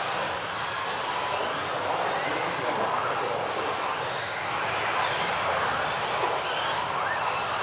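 Several electric RC off-road buggies racing on a carpet track, their motors whining in many overlapping pitches that rise and fall as they speed up and brake, over a steady hiss of tyres and drivetrains.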